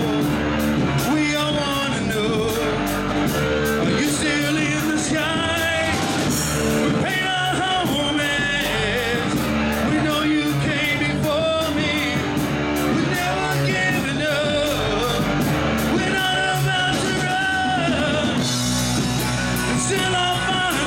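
Live rock band playing: a male singer belting into a microphone over electric guitar, bass guitar and drums with steady cymbal hits.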